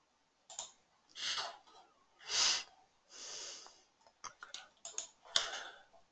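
A person breathing audibly into the microphone, several soft breaths with the strongest about two and a half seconds in. A few quick clicks follow around four to five seconds in, from a computer mouse.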